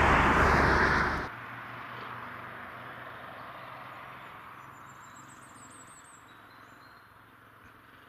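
A loud steady rush of road noise cuts off abruptly about a second in. What remains is faint roadside ambience with distant vehicle noise and a few high bird chirps, fading away.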